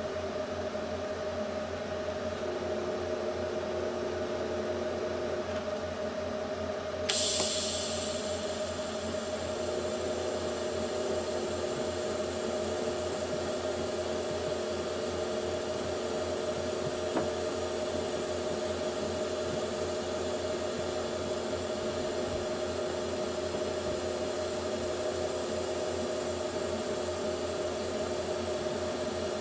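A steady machine hum with a couple of fixed tones runs throughout. About seven seconds in, a TIG welding arc strikes with a sudden jump in level and settles into a steady high hiss: a pulsed 120-amp cleanup pass with no filler rod.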